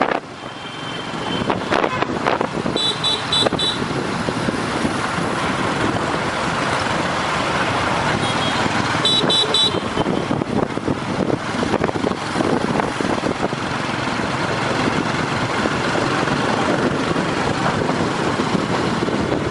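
Motorbike riding through city traffic: steady engine and road noise. Two quick runs of three or four short, high horn beeps come about three seconds in and again around nine to ten seconds.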